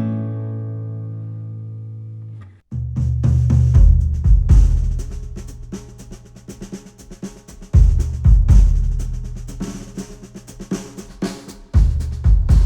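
Recorded music played through studio headphones and picked up by microphones: a held guitar chord rings and fades, cuts off about two and a half seconds in, and after a brief gap a drum kit comes in with heavy bass drum hits, snare strokes and fills.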